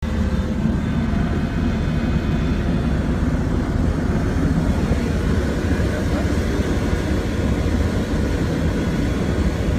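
Strong storm wind making a steady, low roar.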